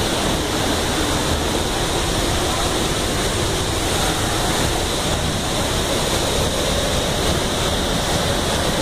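Waterfall rushing steadily, a constant hiss and rumble of water falling into a pool.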